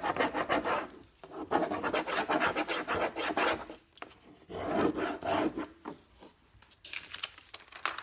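A stick rubbing a rub-on transfer onto a painted surface to burnish it down: quick scratchy back-and-forth strokes in about four short bouts, with brief pauses between them.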